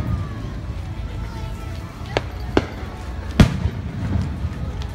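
Aerial firework shells going off in sharp booms: two lighter bangs about two seconds in, then the loudest about three and a half seconds in, over a steady low rumble.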